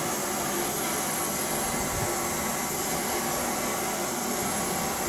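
Small portable gas canister stove burning with a steady hiss.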